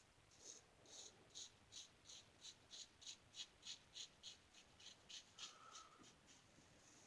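1901 Gem single-edge safety razor scraping through lathered stubble in short, quick strokes, about three a second.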